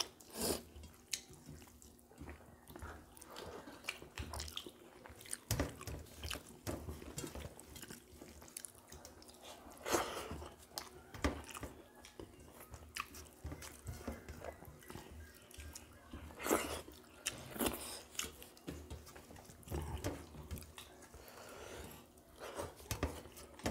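Two people eating rice and curry by hand from steel plates: chewing and lip-smacking, with fingers mixing and scooping the rice against the plates, heard as irregular short clicks and smacks.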